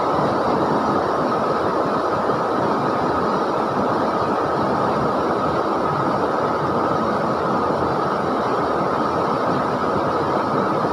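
River water flowing, a steady deep rush with no breaks.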